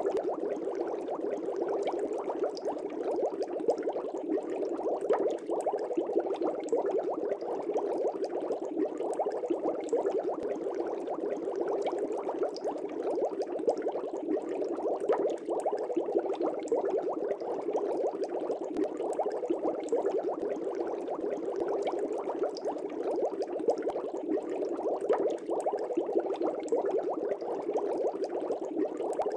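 Air bubbles rising and bursting in an aquarium, a steady dense bubbling with many small pops.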